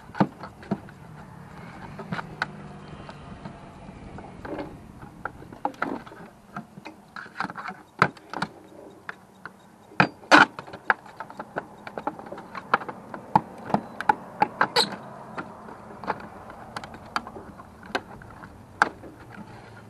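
Hand tools prying and scraping at old metal roof flashing: irregular sharp clicks, knocks and scrapes of steel on sheet metal, the loudest a little after halfway, over a low steady hum.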